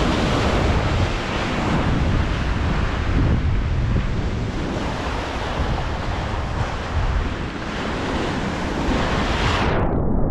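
Sea surf washing and breaking, with wind buffeting the microphone. Near the end the sound turns suddenly muffled.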